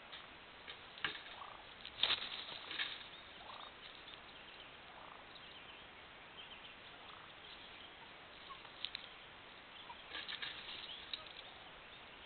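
Wild turkey tom gobbling in rattling bursts, the loudest about two seconds in and another near ten seconds.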